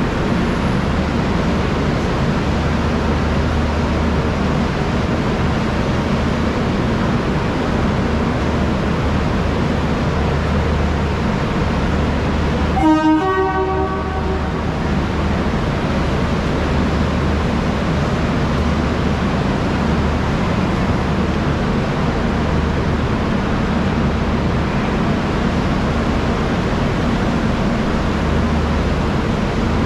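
Steady low hum and hiss of a railway station platform beside a standing passenger train. About halfway through comes a brief pitched toot, like a train horn.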